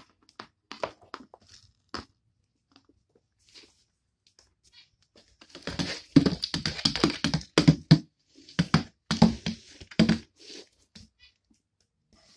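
A plastic toy horse's hooves tapping and knocking on a hard floor as it is made to gallop and buck. Scattered light taps come first, then a quick, louder run of knocks and thuds from about the middle for several seconds.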